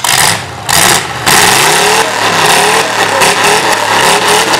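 Chevrolet 1500 pickup engine revved hard during a burnout: two short loud blips in the first second and a half, then held at high revs, its pitch wavering up and down, over the hiss of spinning rear tires.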